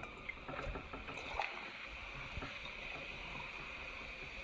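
Vinegar poured onto baking soda, splashing with a few light clicks in the first second and a half, then fizzing as a faint steady hiss.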